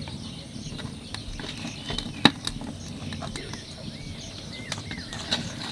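Quiet outdoor background with a few short bird chirps in the second half and scattered small clicks, the loudest a single sharp click a little past two seconds in.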